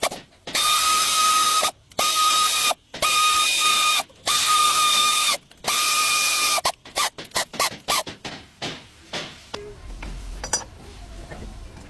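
A power ratchet runs in five bursts of about a second each, each a steady whine over a hiss. A quick string of short trigger blips follows, then it stops.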